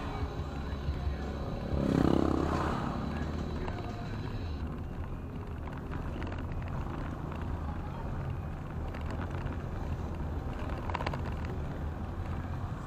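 Steady road and engine noise of a car driving, heard from inside the cabin as a low hum. About two seconds in a louder pitched sound swells up for about a second.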